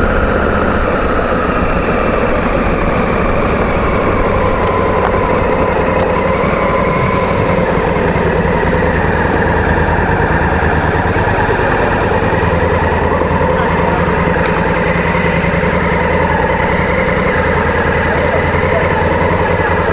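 Honda Africa Twin CRF1000's parallel-twin engine running steadily at low revs while the bike rolls slowly, heard from the saddle.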